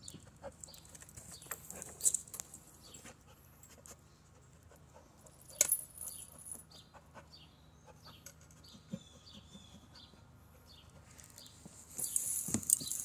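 A dog nosing and pawing at the hub of an aluminium wheel rim in a tyre, making scattered scrapes and clicks, with a louder burst of jingling and scraping near the end.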